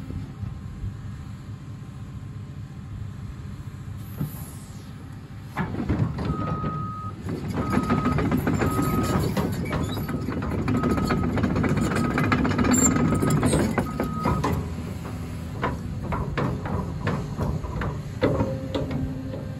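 Cat 330 excavator's six-cylinder C7.1 diesel engine running at a steady idle, then rising in speed about five seconds in as the machine moves. Its travel alarm beeps about once a second for some eight seconds while it tracks, followed by clanks and knocks from the moving machine near the end.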